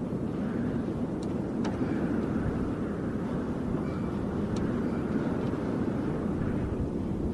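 Wind, a steady low rumbling rush of air without let-up, with a few faint ticks.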